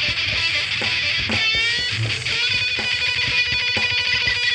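Distorted electric guitar playing a heavy metal lead line: a note bent upward about a second and a half in, then held, sustained notes.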